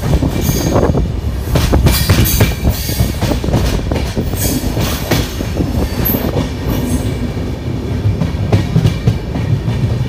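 Passenger train coach running through a station yard, heard from its open doorway: a loud, steady rumble with irregular clacking of the wheels over rail joints and points.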